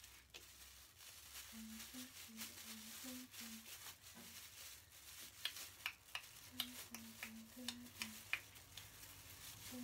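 Faint crinkling and crackling of a thin plastic bag and a plastic water bottle as fingers push the bag jellyfish down into the bottle's neck, with sharper crackles in the second half.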